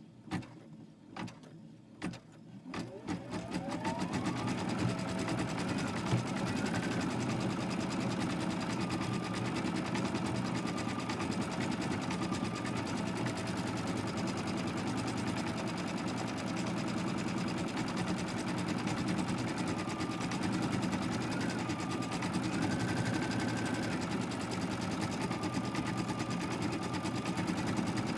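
Computerized embroidery machine stitching freestanding lace. After a few clicks, about three seconds in, it winds up with a rising whine and settles into steady rapid stitching, with a high whine that steps up and down in pitch.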